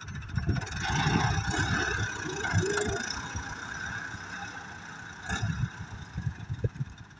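Farm tractor with a front-end loader, its engine running as the bucket tips out a load of soil, with a louder rushing spell over the first few seconds as the earth pours down.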